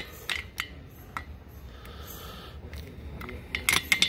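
Light metallic clicks and scrapes of tweezers working at a compressed valve spring retainer to pull out the split retaining key (valve keeper). There are a few clicks early on and a quick cluster of sharper clicks near the end, over a low steady hum.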